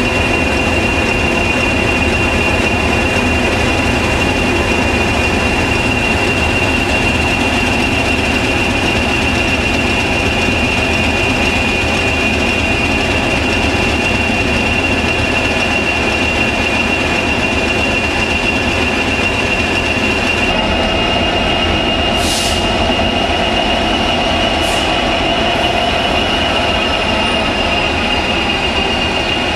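Class 66, Class 20 and Class 37 diesel locomotives coupled together, standing with engines running: a steady, loud engine drone with a steady high-pitched whine over it. Two brief hisses come a little after the middle.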